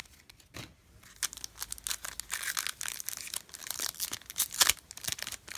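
Foil wrapper of a Pokémon trading-card booster pack crinkling and crackling as it is handled in the hands, fainter for the first second and then busy with sharp crinkles.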